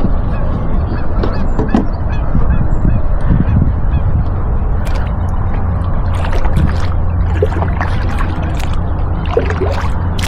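A flock of geese honking repeatedly over a steady low rumble.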